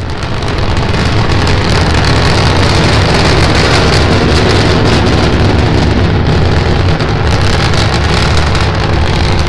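Starship SN9 prototype's three Raptor engines firing during ascent: a steady, loud rumble with hiss, swelling during the first second.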